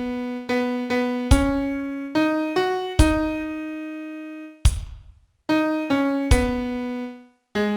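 Piano sound playing a pop song's vocal melody one note at a time, each note struck and fading, with a longer held note in the middle.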